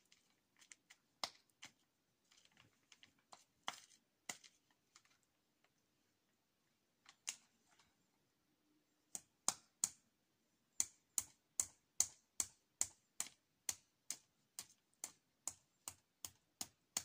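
Hammer driving nails into a wooden frame. A few scattered taps come in the first seconds, then from about nine seconds in a steady run of strikes, about two or three a second.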